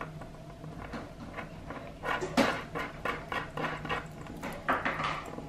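Small metal hardware being twisted and screwed on by hand, giving irregular light clicks and taps, with a sharper click about two and a half seconds in and a few more near the end.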